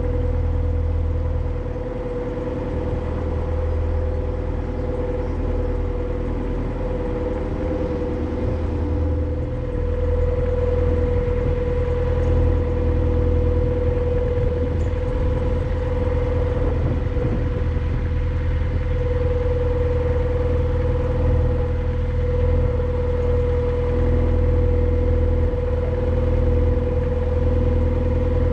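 Narrowboat's diesel engine running steadily while under way: a low, even hum with a steady whine over it, growing a little louder about ten seconds in.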